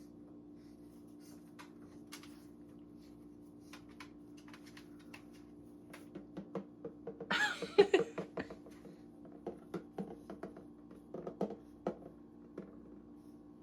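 A pet parrot gives a short, loud squawk about seven seconds in. Small clicks and taps around it are likely the bird moving about, over a steady low hum.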